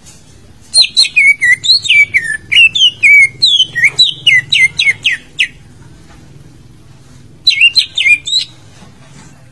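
Cucak ijo (green leafbird) singing: a fast run of loud, sliding whistled notes lasting about five seconds, then a shorter burst of the same notes after a pause.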